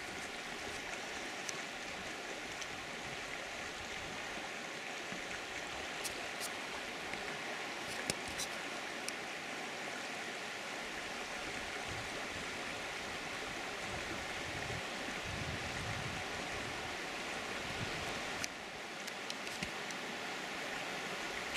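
Steady rush of running stream water, with a few faint clicks.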